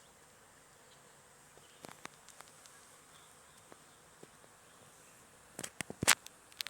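Faint insect buzzing over a quiet background, with scattered sharp clicks and a quick run of louder clicks and knocks near the end.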